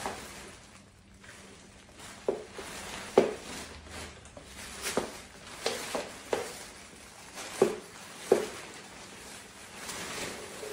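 A pop-up tent being pulled upright by hand: its fabric rustles and its frame gives several sharp, irregular clicks and knocks.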